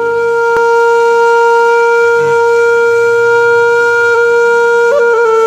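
Background music: a single long held note from a wind instrument, with a brief waver in pitch about five seconds in.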